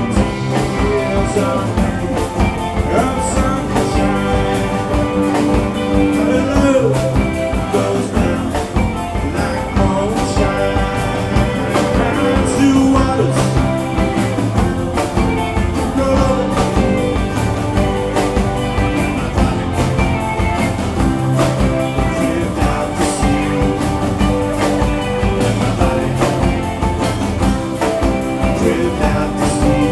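Alt-country rock band playing live: strummed acoustic guitar, electric guitars, bass guitar and a drum kit, with a steady beat.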